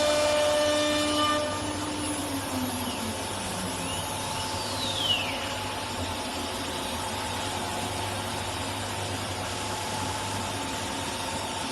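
CNC router spindle whining at a steady pitch, then spinning down about a second and a half in, its pitch falling away; afterwards the machine keeps up a steady hum, with a light click around five seconds in.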